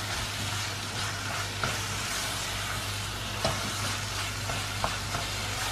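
Chopped citron (narthangai) and onions sizzling in oil in a pressure cooker pan while a wooden spatula stirs them, with a few light knocks of the spatula against the pan.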